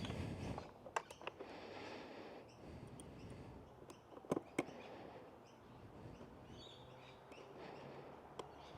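Faint handling sounds of hands and tools working on a motorcycle battery's wiring: a few sharp clicks and taps, two about a second in and two more around four seconds in, over soft rustling hiss.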